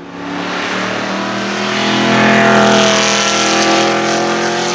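Aston Martin Vantage AMR Pro's 4.7-litre V8 racing engine running hard as the car drives past. The note swells to its loudest about halfway through and eases off slightly towards the end.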